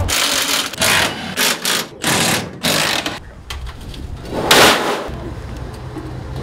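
Cordless power driver run in several short bursts as bolts are backed out of a steel shipping-crate frame, followed by a louder rush of noise about four and a half seconds in.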